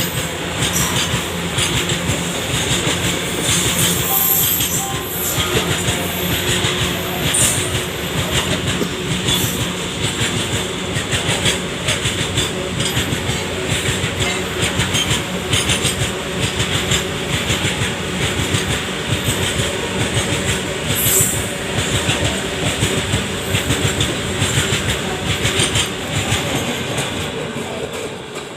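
Heavily loaded goods train rolling past at speed, its wagon wheels clattering rapidly and without a break over the rail joints under a steady rumble, with a few brief high-pitched squeals. The sound fades near the end.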